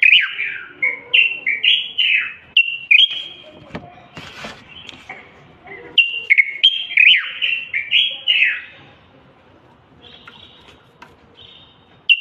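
Common bulbul singing: quick bursts of slurred, falling whistled notes in two bouts, with a lull between and fainter notes near the end.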